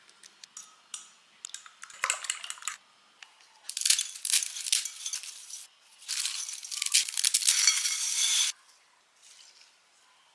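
Kitchen work: a few sharp clinks and taps of dishes and utensils, then three longer stretches of hissing, scraping or rustling noise, the last ending suddenly.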